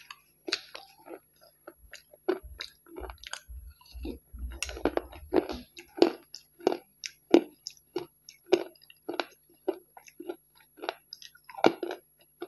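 A person chewing grey chunks close to a clip-on microphone: moist, crunching chews that settle about halfway in into an even rhythm of a little under two chews a second. Low thuds come during the first half.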